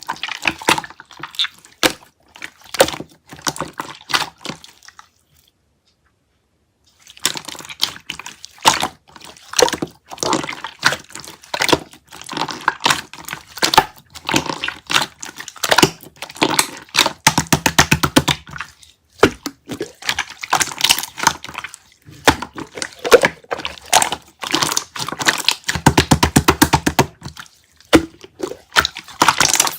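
Clear slime being squished and pressed by hand, giving dense wet clicks and bubble pops. It stops for about two seconds around five seconds in, and twice breaks into runs of rapid, even clicking.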